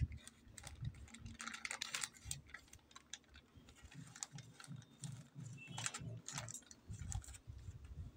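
Plastic courier mailer bag crinkling as it is handled on a table, with light clicks and soft knocks.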